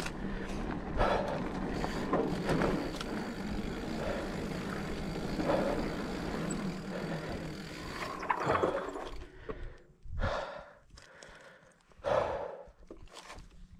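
Mountain bike rolling fast down a dirt trail: steady tyre and wind noise with rattles and knocks from the bike. About nine seconds in the riding noise drops away, and the rider's hard breathing follows, four or five heavy breaths after the effort.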